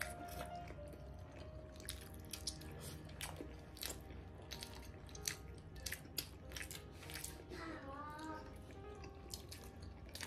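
Two people chewing steamed pork momos with wet mouth clicks and lip smacks, over faint background music.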